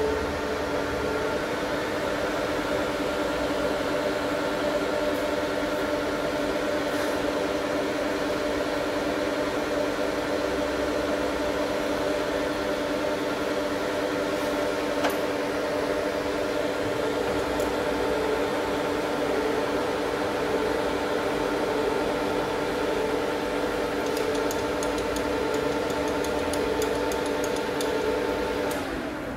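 Guangzhou C6240B gap-bed engine lathe running without cutting, its spindle and headstock drive giving a steady whine. The machine is switched off about a second before the end and the whine falls away.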